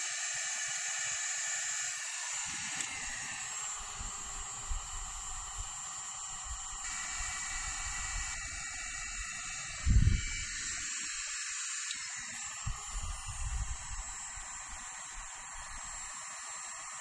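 Electric heat gun running, a steady hiss of its fan and hot air blowing into a small pan to melt candle wax. A single loud knock about ten seconds in.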